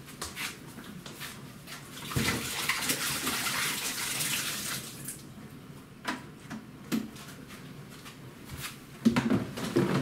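Condensed water from a condenser tumble dryer's plastic water container being poured away, running for about three seconds starting about two seconds in. Scattered plastic knocks follow as the emptied container is handled, most of them near the end.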